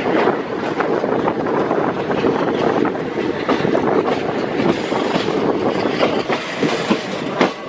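A moving train running along the track: a steady rushing rumble with frequent irregular clicks and clacks of wheels over rail joints, a few sharper knocks near the end.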